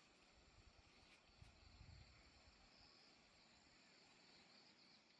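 Near silence: faint outdoor ambience with insects chirring steadily in high, thin tones, and a brief low rumble about two seconds in.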